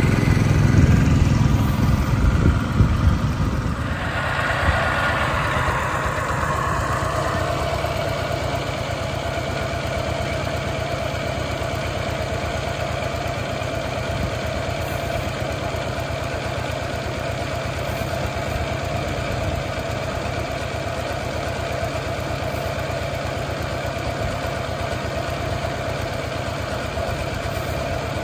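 An engine running, loud with a heavy low rumble for the first four seconds, then settling into a steady, slightly quieter run with a constant hum.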